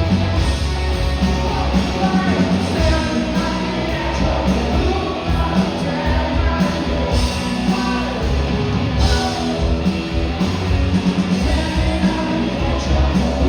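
A rock band playing live, with a singer's voice over the full band.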